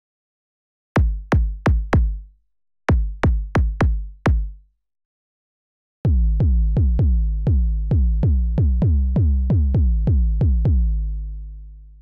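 Native Instruments Massive X wavetable synthesizer playing drum presets: deep synthesized drum hits, each dropping in pitch. Two short phrases of about five hits come first. About six seconds in, a fast run of about three hits a second starts over a held deep bass tone, which fades out near the end.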